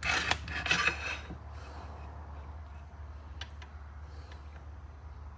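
About a second of rubbing and scraping on the resin pen blank, then a low steady hum with a few faint ticks.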